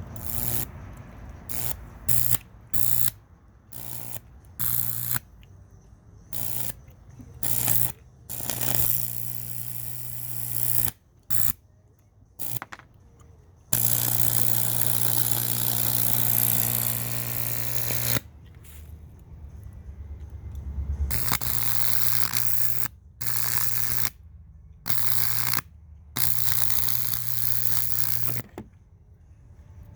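Microwave oven transformer arcing high voltage into a pumpkin: a loud electrical buzz with crackling hiss, switched on and off in short bursts, then in longer runs lasting several seconds.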